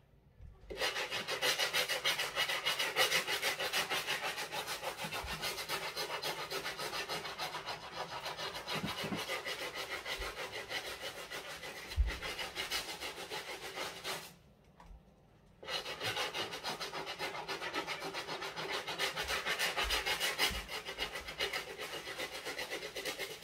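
Stiff-bristle brush scrubbing a sneaker's Boost foam sole with cleaning solution in rapid back-and-forth strokes, stopping for about a second and a half midway.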